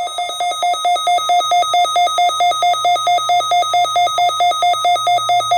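A weather radio's alert alarm beeping in a fast, even pulse of about four beeps a second, set off by a NOAA Weather Radio Required Weekly Test alert.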